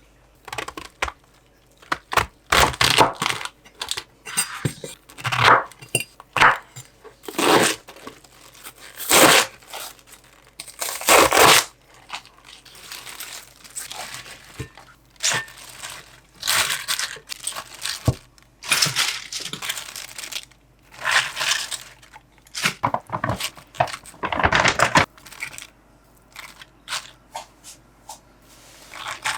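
Rustling, crinkling and tearing, as of packaging being handled, in irregular bursts of about a second with short pauses between.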